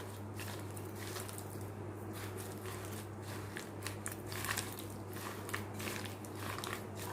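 Hands mashing sliced ripe bananas with grated jaggery in a bowl: faint, irregular squelching and crunching.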